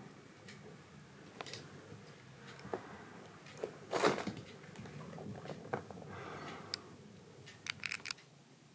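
A kitten being handled against a fleece top: soft rustling of fur and fabric with scattered small clicks, a louder rustle about four seconds in, and a quick run of several clicks near the end.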